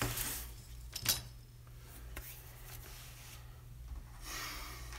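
Handling noise as a fan with a wire grille is moved about on a sheet of stainless steel: soft rubbing and rustling, with a single sharp knock about a second in.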